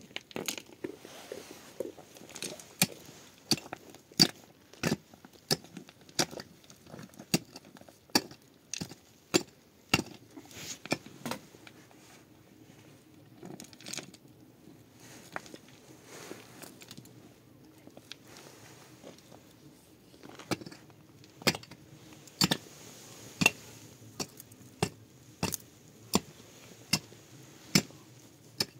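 An irregular series of sharp clicks and knocks, about one or two a second, over a faint steady background.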